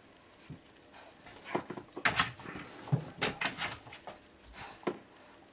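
A Briard dog rummaging in a low shelf of clothes and boxes: irregular rustling, scraping and light knocks, loudest about two seconds in.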